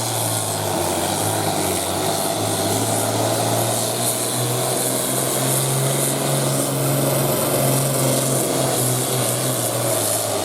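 Farm tractor's diesel engine running hard at full throttle under heavy load while pulling a weight-transfer sled. It is a steady, loud drone whose pitch lifts slightly in the middle and then settles back.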